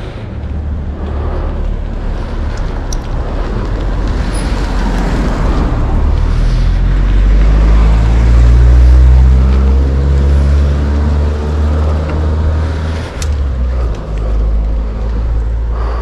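A motor vehicle's engine passing close by over steady low rumble, growing louder to a peak about nine seconds in and then fading.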